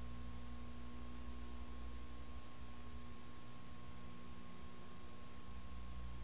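Steady electrical hum with a thin high whine over a constant hiss, and no other sound: the empty soundtrack of a transferred silent home movie. The deepest part of the hum fades for a few seconds in the middle.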